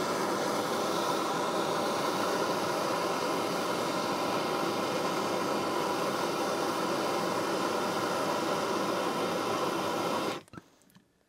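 Handheld plumber's gas torch burning with a steady hiss while heating a copper pipe and fitting for soldering; the flame is shut off about ten seconds in.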